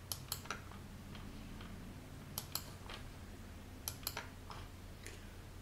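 Computer mouse clicking: three pairs of short sharp clicks, near the start, about two and a half seconds in and about four seconds in, over a faint steady low hum.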